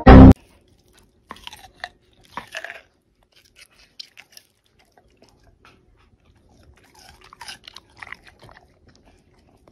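A dog biting and crunching a piece of cucumber, in short clusters of crisp crunches with pauses between them. A brief loud blast of sound comes right at the start.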